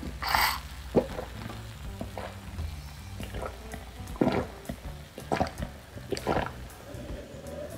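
Beer being gulped straight down from a glass: a slurp at the first sip, then a swallow roughly every second, over soft background music.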